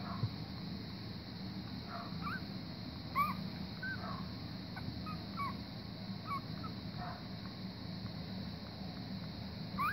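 Week-old German Pinscher puppies giving short, high squeaks and whimpers, scattered about once a second over a steady low hum.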